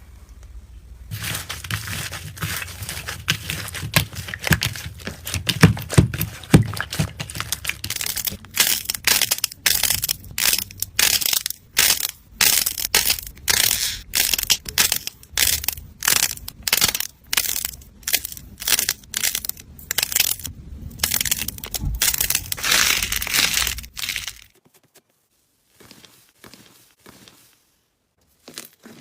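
Hands squeezing and pressing slime, making a crackling, crunching sound. From about a third of the way in it comes in separate squeezes, roughly one or two a second, then turns faint near the end.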